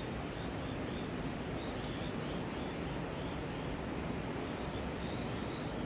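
Birds chirping in short, high, repeated calls over a steady rushing background noise.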